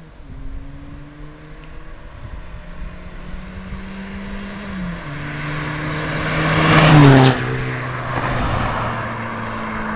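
Four-cylinder turbodiesel cars, a remapped Seat Ibiza 1.9 TDI and a stock Mercedes C220 CDI, accelerating flat out in a drag run. The engine note climbs, drops back at a gear change about five seconds in and climbs again, loudest as the cars pass close by about seven seconds in, then the pitch falls as they go away.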